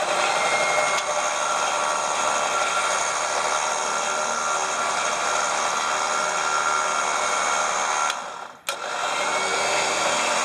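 Smittybilt electric winch motor running steadily as it pays out cable, with no solenoid chatter. About eight seconds in it stops for a moment, then starts again with a click as the solenoid engages.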